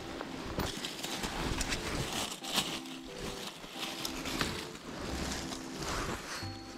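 Rustling and crackling of dry fallen leaves and gloved hands moving about on the forest floor, in many short, uneven bursts. Faint background music with short held notes sounds now and then underneath.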